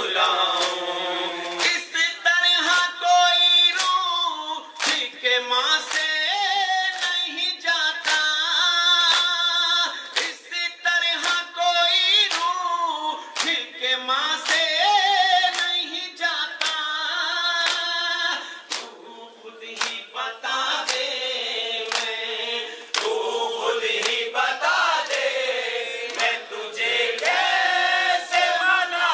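A group singing a noha (Muharram lament) in chorus. Sharp, even beats about one and a half a second keep time with it: the matam of hands striking chests.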